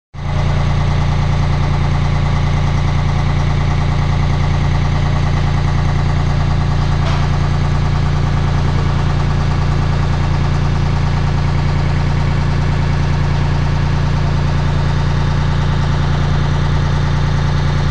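Engine of the construction lifting machinery running steadily at a constant speed: a deep, even hum that doesn't rise or fall.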